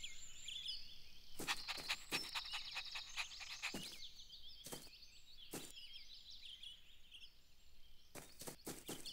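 Faint outdoor ambience of small birds chirping and trilling, with scattered sharp clicks, several close together near the end.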